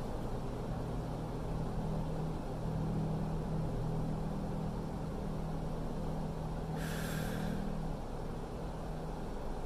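Steady low machine hum with a few held low tones, and a short hiss about seven seconds in.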